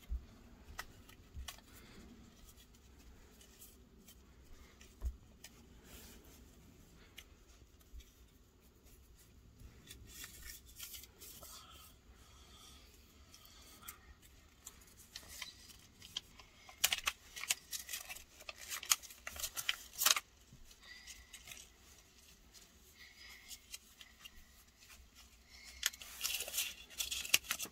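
Paper rustling and crinkling as a rolled-up banknote, tied with a ribbon, is untied and unrolled by hand. It comes in several short bursts, loudest in the second half.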